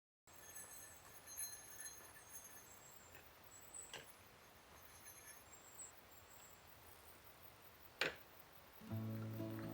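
Faint outdoor ambience with thin, high chirping, broken by two sharp clicks about four and eight seconds in. Background music comes in near the end.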